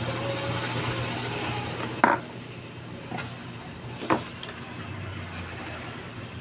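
Two sharp plastic clicks about two seconds apart, with a fainter tick between them, as the mechanism of an opened inkjet printer is handled by hand, over a steady low hum.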